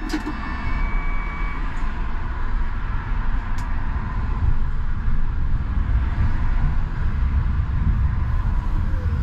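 Škoda 39T low-floor tram running, heard from inside the cab: a steady low rumble of traction motors and wheels on rail that grows a little louder after about five seconds. It opens with a click and a few short thin tones.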